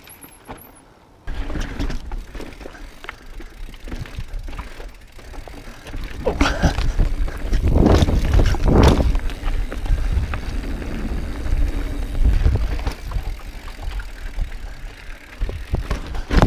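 Mountain bike ridden over rough rocky singletrack: tyres and frame rattling and knocking over the rocks, with wind rumbling on the camera's microphone. The riding noise starts suddenly about a second in and grows louder partway through.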